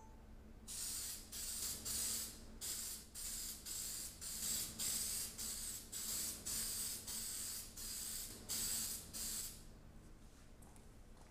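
Aerosol spray can of Brite Touch general-purpose primer spraying in short hissing bursts, about two a second, putting a first coat onto a rim; the spraying stops near the end.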